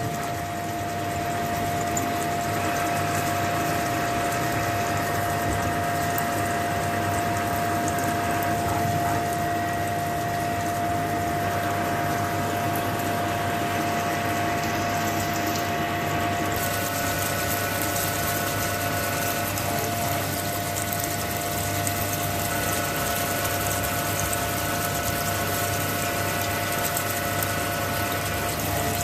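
CNC machine drilling: a steady mechanical whine over a constant hiss. The higher part of the hiss changes about sixteen seconds in.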